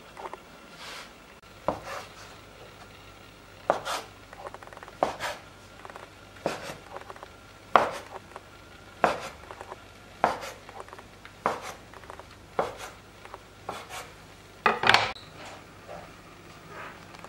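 Knife slicing a rolled log of layered dough into pieces on a wooden cutting board: a sharp knock of the blade on the board roughly every second and a quarter, about a dozen cuts, with the last and loudest near the end.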